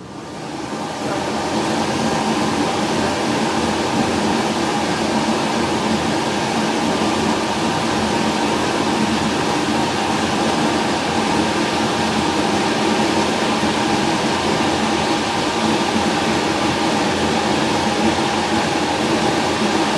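Steady noise of a large ventilation blower running, coming up over the first second or two and then holding even, with a few faint steady tones in it.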